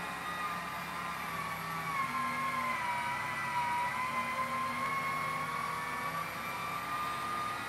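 Electric motor of an aircraft's landing-gear retraction system running as the gear is cycled up: a steady whine that sags slightly in pitch around the middle and then rises a little toward the end.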